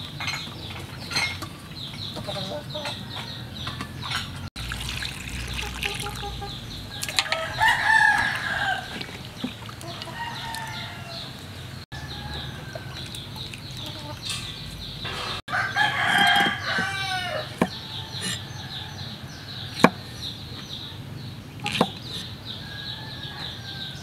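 A rooster crowing twice, about seven seconds in and again about sixteen seconds in, over a steady high-pitched chirring. Two sharp knocks come near the end.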